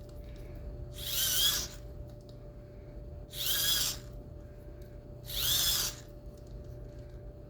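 Microwave turntable motor spun by hand in three short spurts about two seconds apart, its small gearbox giving a high whirring whine that rises in pitch each time. The motor is being turned to work as a little generator.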